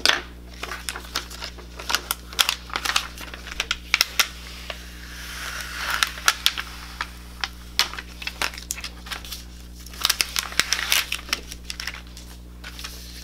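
Glow-in-the-dark heat transfer vinyl being weeded by hand: the excess vinyl peeled away from its clear plastic carrier sheet, with irregular crinkling and crackling of the film.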